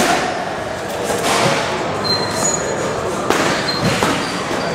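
Boxing gloves landing during sparring: several separate punch thuds at irregular spacing.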